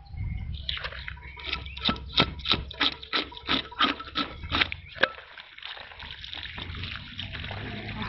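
Rhythmic scraping strokes, about three a second, as a tool is worked over the skin of a large carp to clean it, stopping about five seconds in; then water runs and splashes over the fish.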